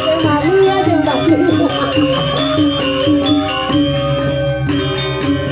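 Balinese gamelan music: metallophones ring in quick repeated figures over a steady low part. A gliding voice or flute line sounds over it in the first second and a half.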